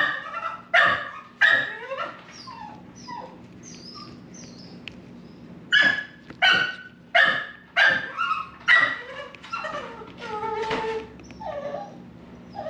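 A puppy barking in two volleys: three sharp barks at the start, softer yips, then five barks about one a second apart and a longer drawn-out whine near the end.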